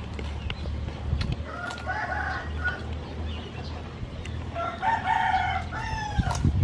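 A rooster crowing twice, the second crow longer and falling in pitch at its end.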